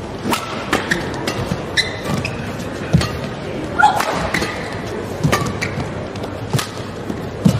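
Badminton rally in a large hall: repeated sharp cracks of rackets striking the shuttlecock, mixed with short squeaks of players' shoes on the court.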